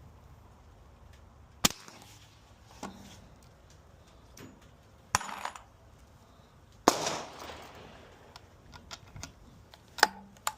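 Suppressed shots from a Rossi LWC single-shot break-action rifle in .44 Magnum fitted with a SilencerCo Hybrid 46 suppressor, among sharp metallic clicks. The loudest crack, about seven seconds in, has a short echoing tail.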